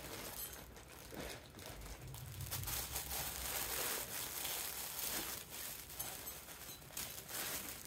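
Plastic packaging crinkling and rustling in irregular bursts as a shipping bag is handled and opened.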